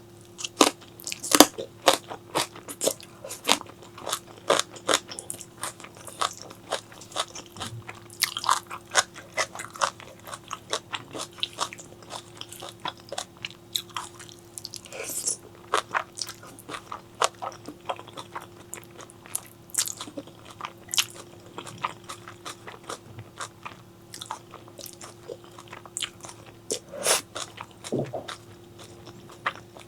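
Close-miked eating: a person biting and chewing crunchy food, with many crisp, irregular crunches and wet mouth clicks throughout.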